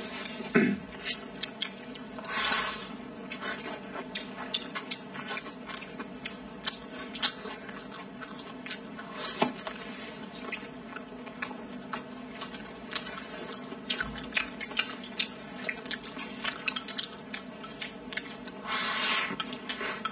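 Close-up mukbang eating sounds: chopsticks and mouths on rice and braised chicken, with lots of small wet chewing and lip-smacking clicks. A couple of breathy slurps come about two seconds in and near the end, over a steady low hum.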